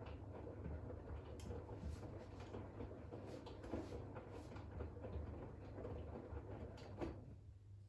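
Bosch WAX32GH1 washing machine draining the wash water: a steady low drain-pump hum under irregular gurgling and splashing, the gurgling thinning out about seven seconds in while the hum carries on.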